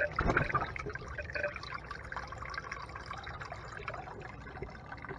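Water poured into a funnel and running down a PVC pipe, trickling and splashing as it fills a water trough below.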